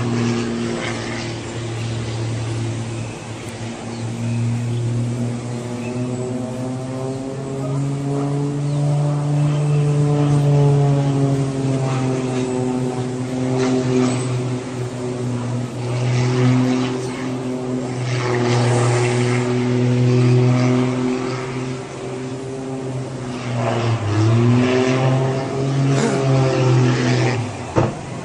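An engine running with a steady droning pitch that wavers slowly up and down. About 24 seconds in it dips and climbs back, and it drops away just before the end.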